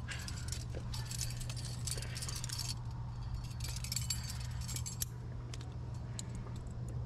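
Trad climbing rack jangling: metal carabiners and cams clinking against each other in two spells of quick, dense clinks, with a steady low hum underneath.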